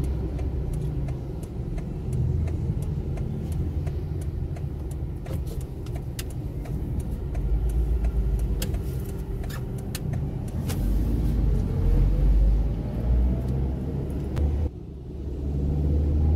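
Car engine and road rumble heard from inside the cabin while driving slowly through town traffic, with scattered light clicks and an engine note rising about two-thirds of the way through as the car speeds up. The rumble drops briefly near the end.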